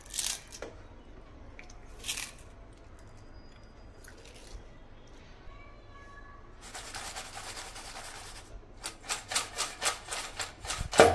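Crisp fried potato chips crackling and rustling in a steel bowl as a hand crumbles a few and then shakes the bowl: a few short crackles early on, a longer rustle around the middle, then a quick run of rattling shakes near the end.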